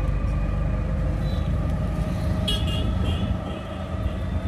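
Ride inside an auto-rickshaw: its engine's steady low drone and road noise, with brief high horn beeps about halfway through.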